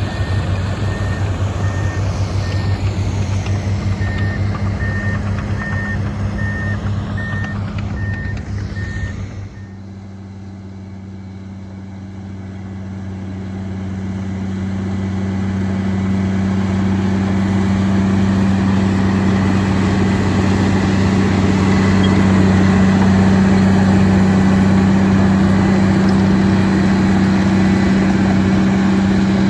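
Diesel engines of heavy earthmoving machines running, with a backup alarm beeping at an even pace over the first engine. About a third of the way in the sound changes abruptly to another steady engine drone, which grows louder over the next ten seconds or so and then holds.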